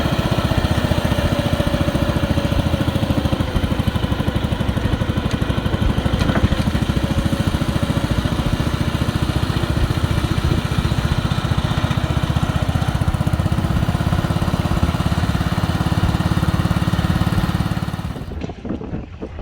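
Small gasoline engine running at a steady speed, a rapid, even run of firing pulses. It drops away sharply near the end.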